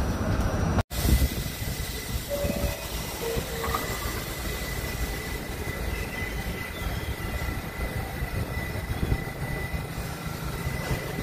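R68A New York City subway train standing at a station platform: a steady low rumble with a faint, steady high whine from its running equipment. The sound cuts out briefly about a second in.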